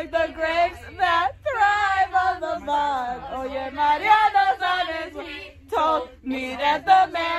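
Teenagers singing along together in a group, with a low rumble from the bus underneath.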